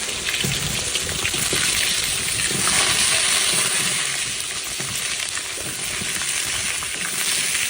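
Food sizzling steadily in hot oil in a cooking pot, with a few low knocks.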